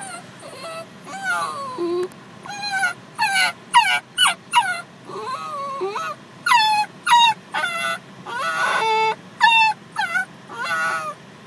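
Basenji dog whining and yelping in a rapid series of short, high cries, most sliding down in pitch, distressed at being left in the car after her owner walked away.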